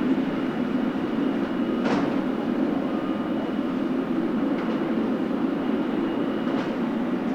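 Steady rumble of a Boeing 777F's GE90 jet engines, with a faint high whine and a few short clicks.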